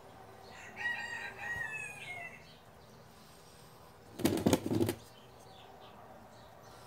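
A chicken calls for about a second and a half, then near the middle there is a short, loud burst of wing flapping.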